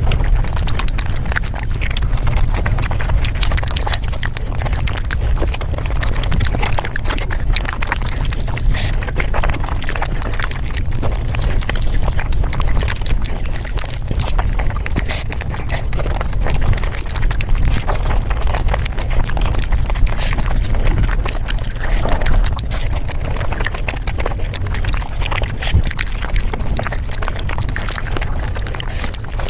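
Mukbang eating sounds sped up five times: a rapid, dense stream of chewing and crunching clicks over a steady low rumble.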